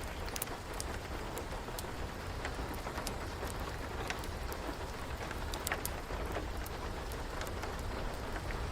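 Steady rain hiss with scattered sharp pops and crackles of a wood fire at irregular intervals.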